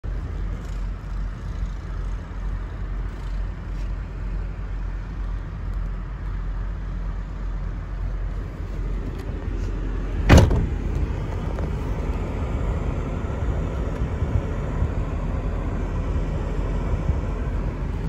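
Steady low rumble inside a car, with one sharp, loud thud about ten seconds in.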